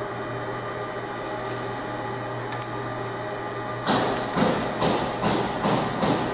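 Steady hum from the laser marking machine. About four seconds in, a quick run of about six rustling, clattering bursts, two to three a second, as the plastic seals are handled close to the microphone.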